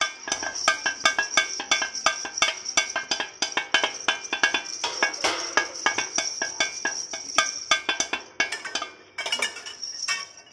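Hanging metal pipes and steel plates on a homemade percussion frame struck in a quick run, about three or four ringing metallic clangs a second at different pitches, thinning out near the end.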